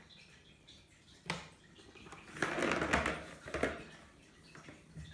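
Kittens batting a ball around a plastic circular track cat toy: a sharp click about a second in, then a rattling roll of the ball through the plastic track in the middle, and a few lighter clicks near the end.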